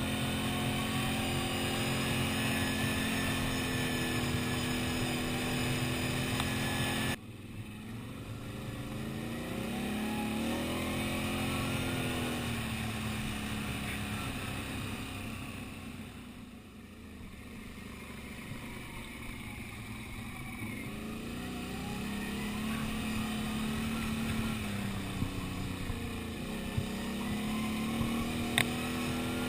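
Quad (ATV) engine running on the move along dirt tracks, its revs rising and falling repeatedly with the throttle. There is an abrupt cut and drop in level about seven seconds in, and a few sharp knocks near the end.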